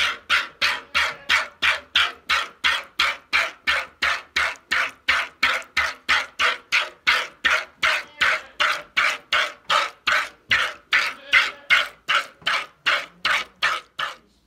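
A goat being milked out by hand: streams of milk squirting from the teat into a plastic bowl in a steady rhythm of about three squirts a second.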